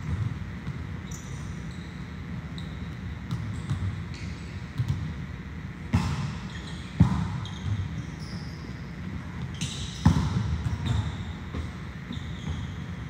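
Volleyballs being struck and hitting the floor in a gym, sharp echoing slaps over steady hall noise. The loudest hits come about seven and ten seconds in.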